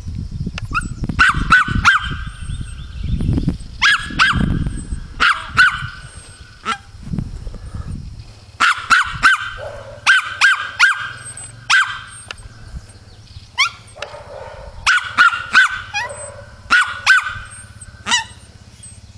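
Small dog yapping: short, high-pitched barks in quick runs of two or three, repeated throughout. A low rumble runs under the barks for roughly the first eight seconds.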